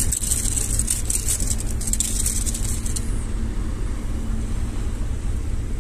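A freshly landed barracuda thrashing on wet rock, with quick rattly scrapes for about the first three seconds, over a steady low rumble.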